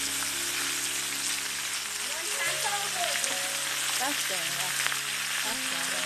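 White fish frying in oil in a cast-iron grill pan, sizzling steadily as the pieces are turned with tongs. The sizzle cuts in and out abruptly.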